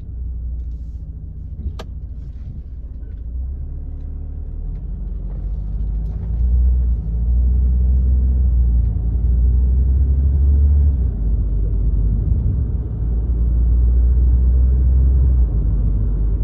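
In-cabin sound of a Citroën C4 Grand Picasso's 2.0 BlueHDi diesel with automatic gearbox accelerating away to about 55 km/h: a low rumble of engine and road noise that builds over the first six seconds, then holds steady. A single sharp click about two seconds in.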